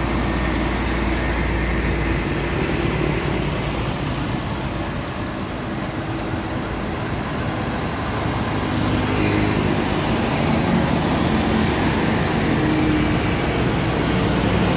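Heavy diesel tractor-trailer trucks hauling low-loader trailers drive past one after another, their engines running steadily over the noise of road traffic. The sound grows a little louder about nine seconds in as the next truck comes alongside.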